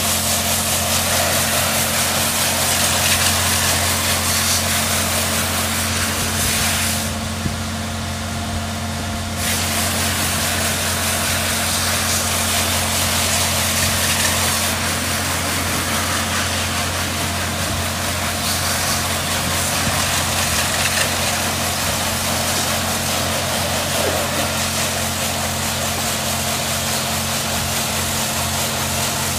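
LeisuWash EG touchless car wash spraying high-pressure water jets onto a van, a loud hiss of spray over a steady low machine hum. The spray hiss drops away for about two seconds roughly seven seconds in, then resumes.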